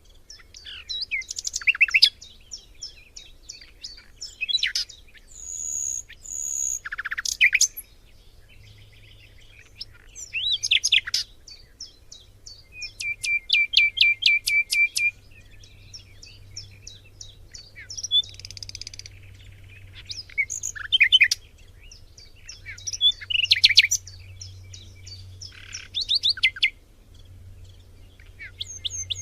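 Several songbirds singing and calling in a forest, in overlapping phrases of chirps, whistles and trills with short pauses between them. About halfway through one bird gives a fast trill of evenly repeated notes lasting a couple of seconds.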